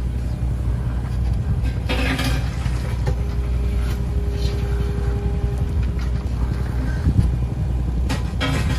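Hitachi ZX38 mini excavator's engine running steadily under work, with a steady whine from about three seconds in that stops near seven seconds, and two bursts of clatter, about two seconds in and near the end.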